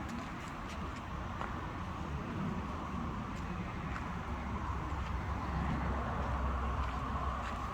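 A steady low rumble of a running vehicle, with a few faint clicks.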